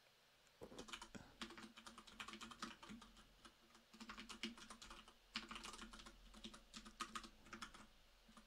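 Computer keyboard typing: quick runs of faint keystrokes, starting about half a second in, with a short pause about halfway through.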